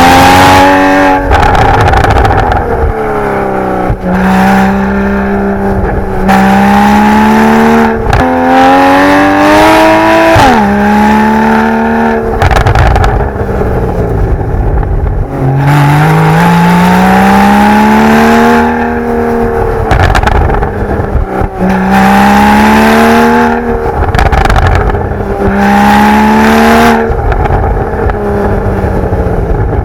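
Porsche 981 Boxster GTS's naturally aspirated 3.4-litre flat-six with the factory sport exhaust, revving hard: the engine note climbs in pitch again and again as the car accelerates, drops sharply at gear changes, and turns rough and pitchless between pulls when the driver lifts off.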